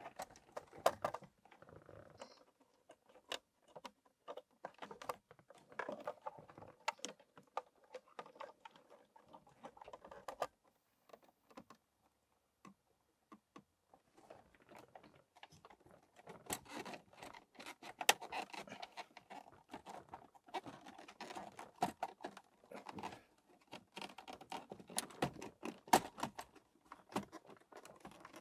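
Hands refitting the plastic parts of a Citroën DS instrument panel: irregular small clicks, taps and rustles of parts and fittings being handled, with a quiet pause about halfway and busier handling after it.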